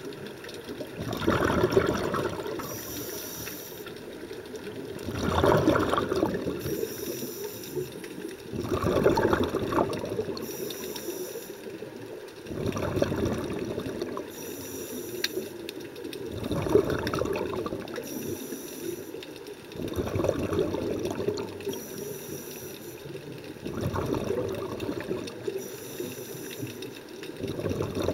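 Scuba diver's breathing through a regulator, heard underwater: a faint hiss on each inhale, then a gurgling rush of exhaled bubbles, repeating about every four seconds, seven times.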